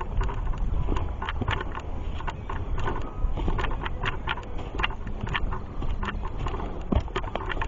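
Footsteps crunching along a dirt trail, a few irregular steps a second, over a steady low rumble of wind or handling on the microphone.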